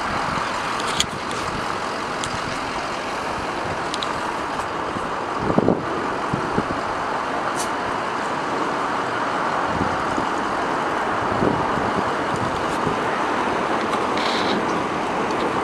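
Steady road traffic noise, the continuous hum of cars and trucks driving past on the street.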